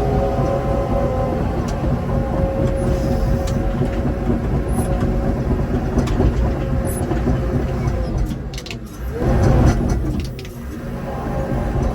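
Heavy earthmoving machine's diesel engine running steadily, dropping briefly about eight and a half seconds in, then surging and settling back.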